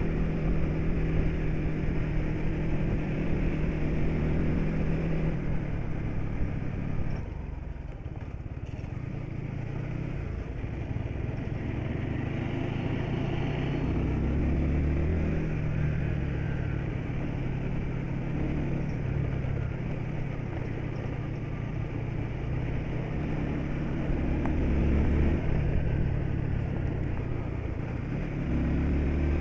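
Bus engine running while driving, heard from inside the vehicle. Its note dips about seven seconds in and builds again later.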